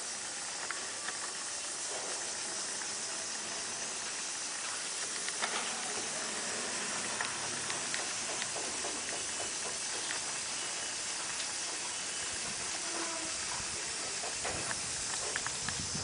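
Steady high-pitched hiss with a few faint clicks scattered through it.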